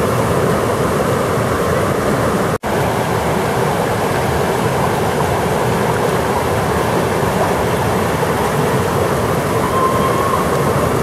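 Roar of the Narmada River's whitewater rapids churning over rocks, close up and steady, with the sound cutting out for an instant about two and a half seconds in.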